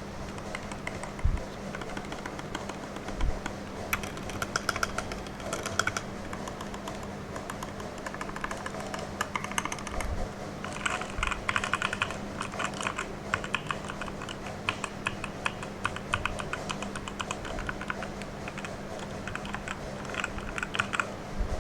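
Typing on a Redragon Fizz K617 60% mechanical keyboard with its stock Redragon red linear switches, unmodded: a few scattered keystrokes, then fast continuous runs of key clicks from a few seconds in, with a handful of deeper thuds. The sound is a bit hollow, as expected of an unmodded board.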